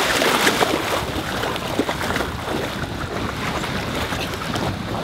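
Lake water splashing and lapping as a swimmer kicks along in an inner tube, with wind buffeting the microphone.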